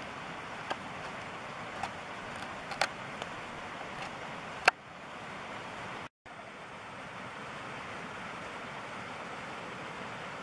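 Steady rushing background noise with a handful of sharp clicks over the first five seconds, the loudest about halfway through.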